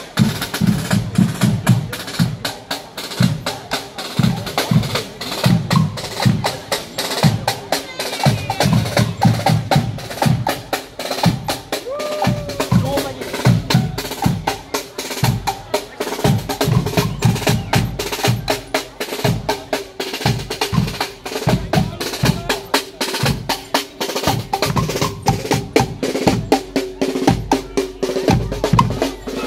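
Guggenmusik drum section playing a marching groove: snare drums, bass drum and cymbals in a loud, driving beat.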